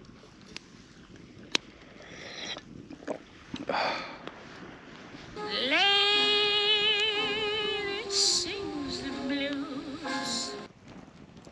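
A singing voice slides up into one long held note with vibrato, holds it for about five seconds and falls away at the end. Before it, a wood campfire gives a few sharp crackles.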